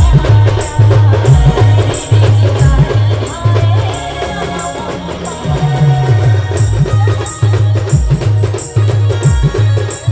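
Adivasi band music playing an aarti tune: a wavering melody over a heavy low drum beat about every 0.6 s, with a ticking high percussion rhythm. The low beat drops out for a moment in the middle, then comes back.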